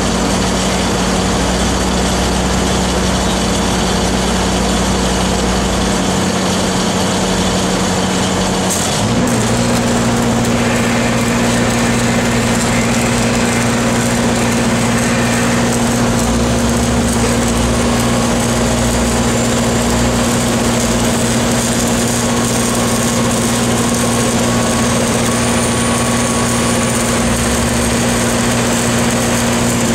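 Engines running steadily on the pipe yard, one stepping up in pitch about nine seconds in, with the crackle of a stick-welding (SMAW) arc on a pipeline joint.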